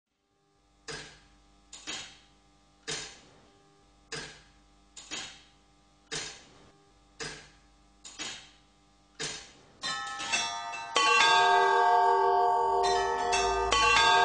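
Music: a series of sharp, bell-like struck notes, roughly one a second and sometimes in quick pairs, each ringing away over faint held tones, then swelling into louder, fuller music with many sustained notes about three seconds before the end.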